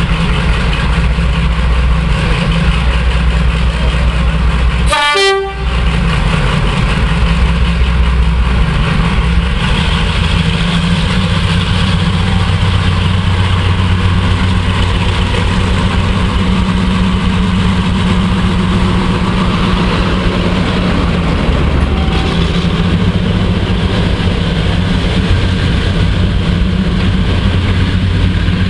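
Class 42 Warship diesel-hydraulic locomotive's twin Maybach diesel engines running, idling at first and then powering up from about ten seconds in as the train pulls away, with coaches rolling past near the end. There is a brief dropout in the sound about five seconds in.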